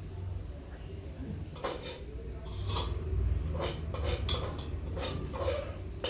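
Dishes and cutlery clinking and knocking during a meal, a run of short clatters starting about one and a half seconds in, over a steady low rumble.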